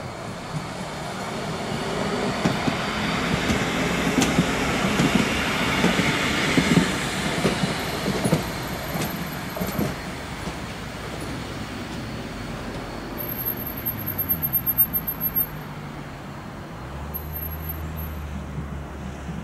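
A low-floor articulated electric tram passing on a curved ballasted track, its wheels rumbling on the rails, growing louder as it approaches, loudest about six to seven seconds in, then fading as it moves away. A quick run of sharp clicks comes about fourteen seconds in.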